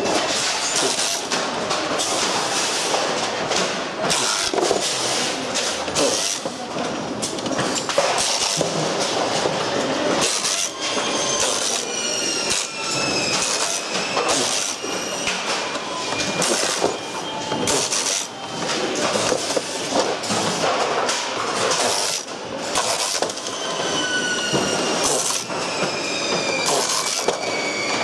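Pneumatic screwdriver running in repeated bursts, backing screws out of a pachinko machine's plastic trim. Its whine falls in pitch several times as it slows. Plastic parts and loose screws clatter and knock throughout.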